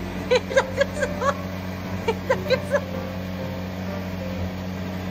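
Two quick runs of laughter, one at the start and one about two seconds in, over the steady hum of a cotton candy machine's spinning motor.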